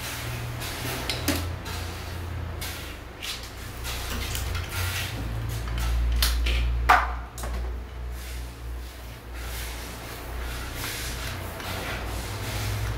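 Plastic hand shower holder being fitted to a tiled wall and screwed on with a hand screwdriver: scattered clicks and scrapes of plastic and screw, with one louder click about seven seconds in, over a low rumble.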